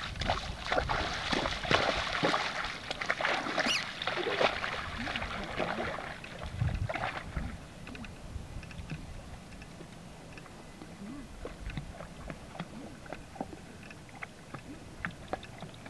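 Water sloshing and splashing as a horse and a person wade through shallow pond water, heaviest over the first six seconds, then dying down to occasional small splashes.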